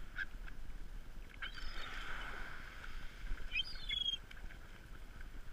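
Gulls calling: a short cry near the start, a longer one about two seconds in and a sharp, falling call about four seconds in, over a steady hiss of wind and lapping water.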